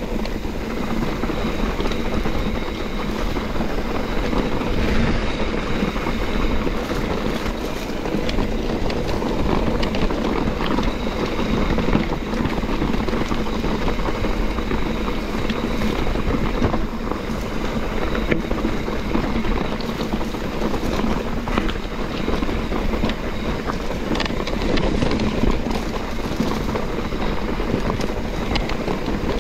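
YT Capra mountain bike riding down a rocky dirt trail: tyres crunching over loose rock and the bike rattling with many small knocks, mixed with wind on the microphone.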